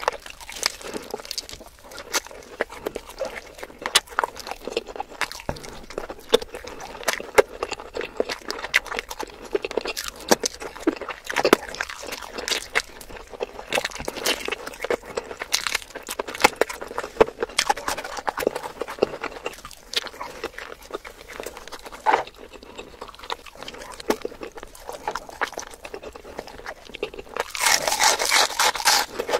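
Close-miked eating of a whole roast chicken: crisp glazed skin crunching and crackling under bites, with chewing and wet mouth sounds in quick irregular clicks. A louder rubbing, scraping noise comes near the end.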